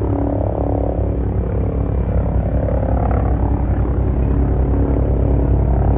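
Agusta Caweel CW-95 aircraft sound effect: engine running steadily with a dense, fast low pulsing under a steady hum, gradually getting a little louder.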